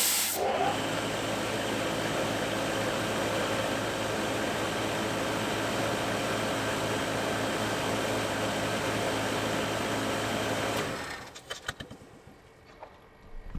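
Freund Flow Coater Mini fluid-bed granulator running: a steady machine whirr with a low hum of several even tones, starting after a short burst of air-like hiss and dying away about eleven seconds in.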